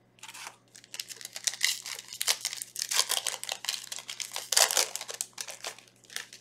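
Foil Yu-Gi-Oh booster pack wrapper being torn open and crinkled, a dense crackling rustle that runs for several seconds.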